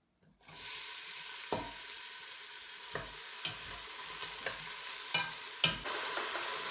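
Chopped onion hitting hot oil in a stainless steel pot, starting to sizzle about half a second in and frying with a steady hiss. A metal spoon knocks against the pot several times as the onion is stirred.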